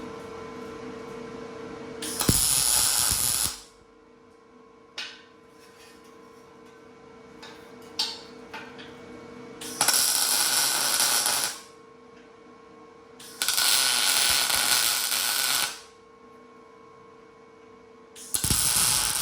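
Welder laying tack welds on a steel four-link bracket plate: four bursts of arc noise, each a couple of seconds long, about 2, 10, 13 and 18 seconds in, with a steady hum between them.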